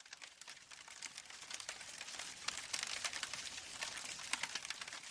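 Wood fire crackling: a dense, irregular run of sharp pops and snaps over a soft hiss, fading in at the start.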